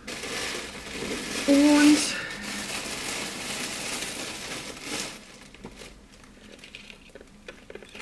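Packaging crinkling and rustling as it is handled for about five seconds, then only faint handling sounds.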